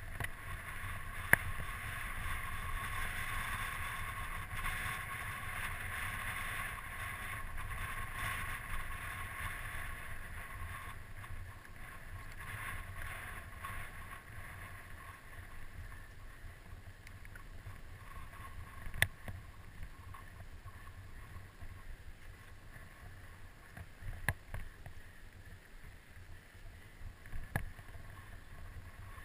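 Mountain bike ridden down a dry dirt singletrack: tyres rolling over dirt and loose stones with a steady low rumble and hiss. A few sharp clacks from the bike over bumps, the loudest about a second in.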